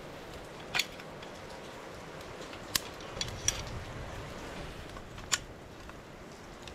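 Steady rain falling, with about five sharp clicks or clinks over it.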